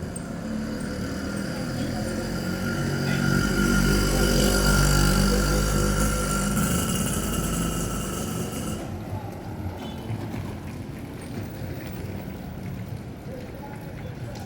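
A motor vehicle drives past, its engine getting louder to a peak about four to six seconds in and then fading away.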